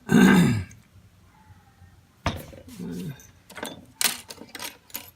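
Small metal clicks and clinks of an opened padlock and lock-picking tools being handled, a run of sharp taps from about two seconds in, with a short vocal sound at the start.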